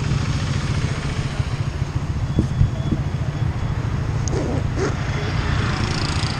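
Motorcycle engine idling steadily, with a few light clicks about two and a half seconds in and passing city traffic.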